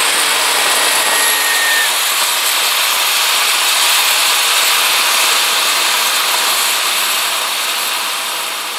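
Homemade turbojet built from a small turbocharger running under its own combustion: a loud rushing roar with a high turbine whistle that climbs in pitch over the first two seconds and then holds steady. A lower hum underneath stops about two seconds in, and the sound fades down near the end.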